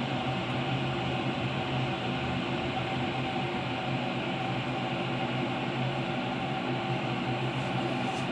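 Galaxy Line GL0338 electric kettle heating water toward the boil: a steady hiss with a low hum, almost no noise.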